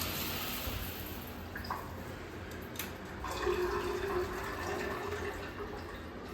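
Shower water running and dying down to drips, with a short whine about three and a half seconds in.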